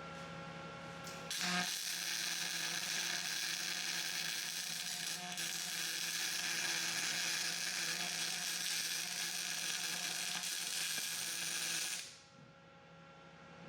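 Welding arc crackling and hissing steadily while teeth are welded onto a skid-steer bucket. It strikes about a second in, runs for roughly ten seconds and cuts off suddenly near the end.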